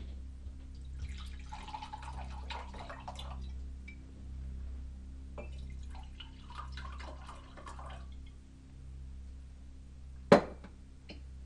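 Liquid poured into a glass in two pours of about two to three seconds each, followed near the end by one sharp knock, the loudest sound, like a glass or bottle set down on the counter. A steady low hum runs underneath.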